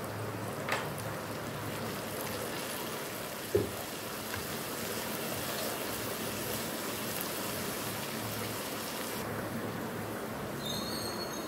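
Cabbage, carrot and chicken sizzling in a hot wok while they are stirred with a spatula, with two knocks about 1 s and 3.5 s in, the second the louder. The hiss thins out near the end.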